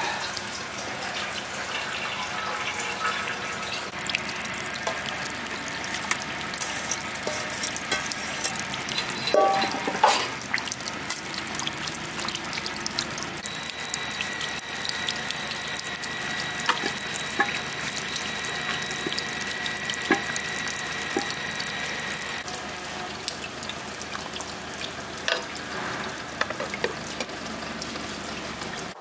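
Steady splashing water noise, thick with small ticks, like running water or rain on surfaces. A steady high whistle-like tone runs over it from about a third of the way in to past the middle, with a few louder knocks in the first ten seconds.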